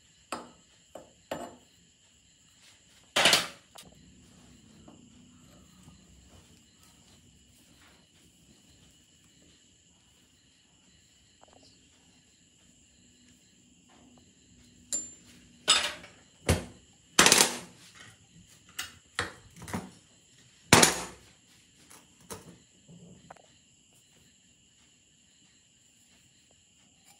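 Metal parts of a rusty hydraulic bottle jack being handled and taken apart on a steel diamond-plate bench: scattered sharp metallic clanks and knocks. There is one loud knock about three seconds in and a cluster of loud ones a little past the middle, over a faint steady high whine.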